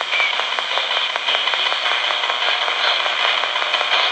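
RadioShack portable radio used as a ghost box, sweeping up through the AM band: steady loud static hiss broken by a rapid run of clicks as the tuning steps from station to station.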